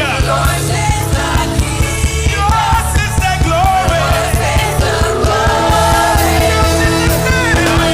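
Worship music from a band with a steady beat, with sung melody lines over it.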